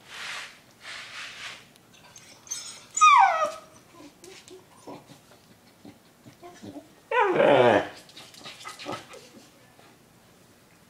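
A frightened dog whining and crying, with two loud cries that fall in pitch about three and seven seconds in, the second sliding down low. The dog is afraid of a large bone set down in front of it.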